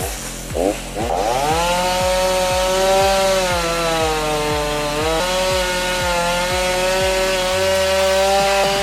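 Chainsaw revved up to full throttle about a second in and held at high revs through a cut, with a slight drop in pitch around the middle.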